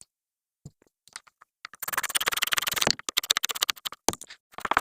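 Rapid metallic clicking and clinking of hand tools at work on a brake caliper: a dense run of clicks about two seconds in, scattered clicks, then another run near the end.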